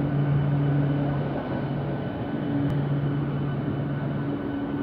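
ICF Medha electric multiple unit local train running past a platform: a steady rumble with a low electric hum that cuts out and comes back every second or so.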